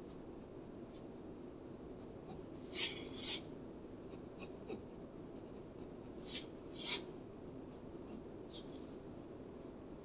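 Pentel Graphgear 1000 mechanical pencil sketching on paper: short, irregular scratchy strokes, the loudest about three seconds in and again near seven seconds.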